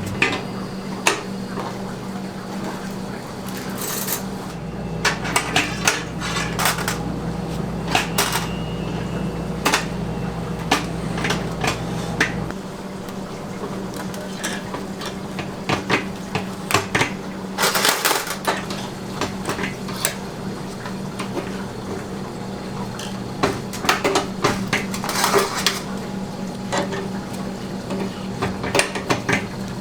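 Metal kitchen utensils and pans clattering and clinking in bursts during food preparation, over a steady low machine hum. A deeper rumble under the hum stops about twelve seconds in.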